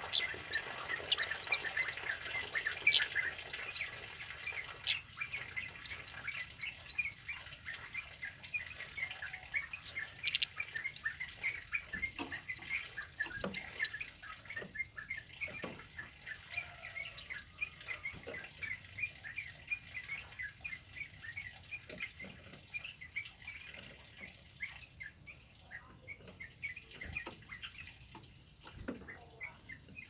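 Male kemade songbird singing a fast run of short, high chirps and twitters, in thick bursts of quick notes twice in the second half, with a few sharp clicks among them.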